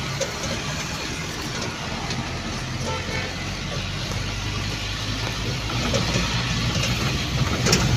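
Motor vehicle engine running steadily with road and wind noise, heard from inside the moving vehicle. The low engine hum and rushing noise grow a little louder near the end.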